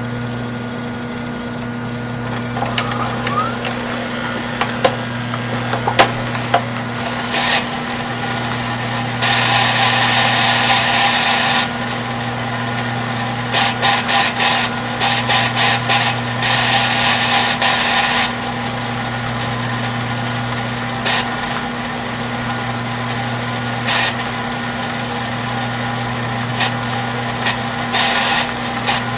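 Samsung DVD-V9800's VHS transport winding a cassette at high speed over a steady motor hum. There is loud hissing tape-winding noise about nine to twelve seconds in, then a run of choppy on-off bursts, plus scattered clicks from the mechanism.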